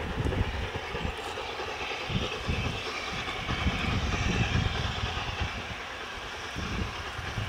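Distant LNER A4 Pacific steam locomotive 60019 Bittern, a three-cylinder 4-6-2, working a passenger train, with wind buffeting the microphone in uneven low rumbles.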